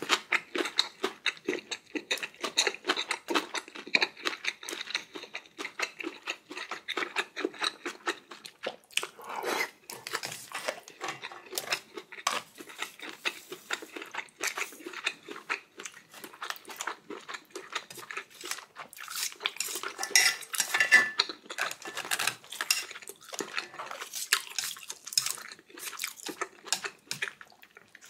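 Eating utensils clinking and scraping against a bowl and dishes in a dense run of quick, sharp knocks, with a busier flurry about twenty seconds in.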